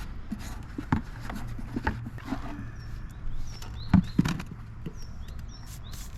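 Scattered clicks and knocks of tools and brake parts being handled, the loudest about four seconds in, over a low steady hum. Birds chirp in the background in the second half.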